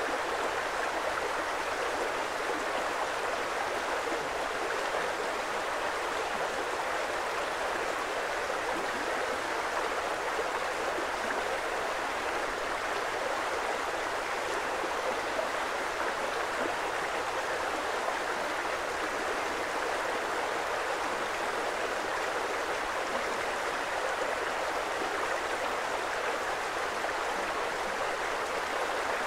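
Creek water flowing in a steady, even rush, with no breaks or changes.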